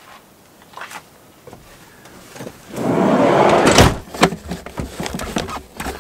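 A van's sliding side door rolling shut and closing with a thud, followed by a few light clicks and knocks.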